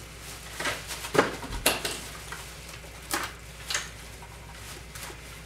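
Plastic packaging rustling and crinkling as it is pulled off a new trolling motor, with several sharp clicks and knocks from handling the motor's parts; the loudest come about a second and a half in.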